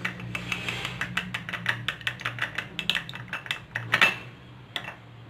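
A spoon stirring honey into fresh ginger and tulsi juice, clicking quickly against the side of a small dish, several taps a second. It stops about four seconds in, and the honey is mixed in.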